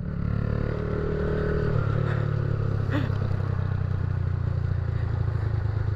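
Single-cylinder engine of a 2008 carburetted Honda Titan 150 running steadily through a Roncar Aluminium Boca 8 sport exhaust, with a loud, noisy exhaust note.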